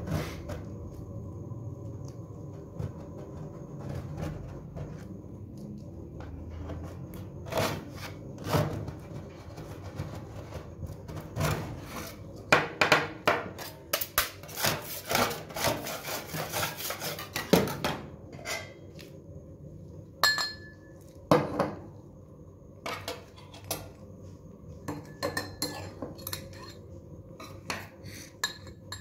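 Metal spatulas scraping and tapping on the stainless-steel cold plate of a rolled ice cream machine, in short irregular strokes with a dense run of rapid scraping about halfway through, over a steady hum.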